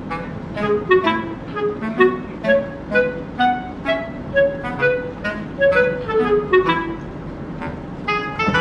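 Background music: a light instrumental tune of short, bouncy notes at a steady pace.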